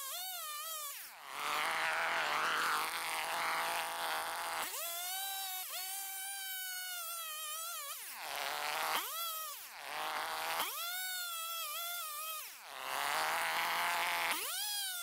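Stihl two-stroke chainsaw cutting lengthwise down the side of a maple log, the engine held high with the chain in the wood. Three times the engine note dips and sweeps back up, about a second in, around eight seconds and near twelve seconds, as the saw comes out of the cut and goes back in.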